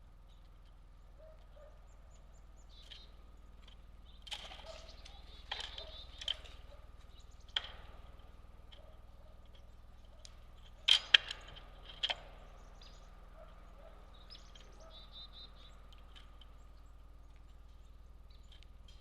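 Birds at a backyard feeder: a handful of sharp taps and knocks, the loudest a close pair a little past the middle, with faint, short, high bird chirps between them and a brief run of high notes later on.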